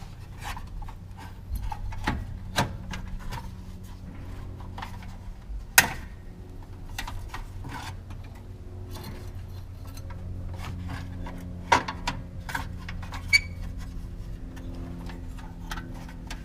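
Irregular clicks, knocks and rubbing of hard plastic and metal parts being handled in the engine bay, as the upper radiator core support is worked free of the coolant hoses. A few sharper knocks stand out.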